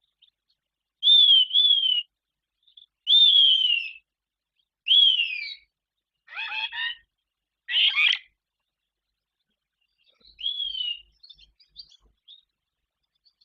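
A bird calling: loud, clear whistled notes that slide down in pitch, first a double note and then single notes about two seconds apart, followed by two harsher, buzzier notes and, near the end, faint short chirps.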